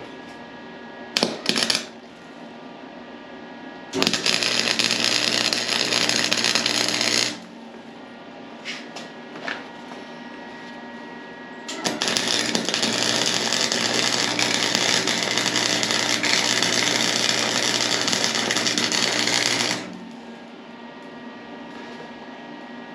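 Arc welding a pipe extension onto a go-kart frame: two runs of steady hissing arc, one about three seconds long and then a longer one of about eight seconds, with a couple of sharp clicks about a second in.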